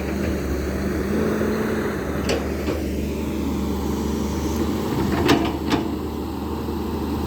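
Volvo EC200B excavator's diesel engine running steadily at work, with a few sharp metallic knocks, two of them close together past the middle.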